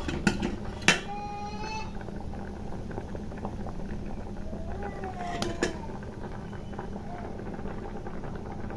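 Khichdi simmering in an aluminium pot, a steady bubbling, with a steel ladle clinking against the pot twice in the first second and once more about halfway through.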